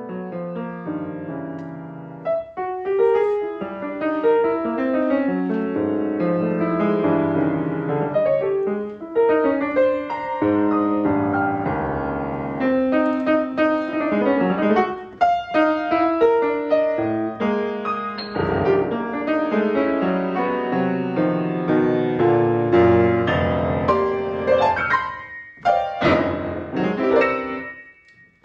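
Jazz piano playing a busy passage of chords and runs in shifting rhythm, from a piano, bass and drums composition, with a short drop in level near the end.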